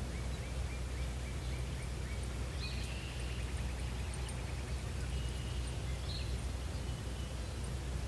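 Songbirds calling over a steady low rumble: a run of short repeated chirps, about three a second, in the first two seconds, then higher trilled calls about three and six seconds in.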